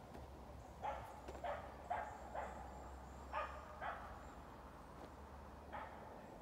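A dog barking faintly: seven short barks in loose groups, about half a second apart, with a last single bark near the end.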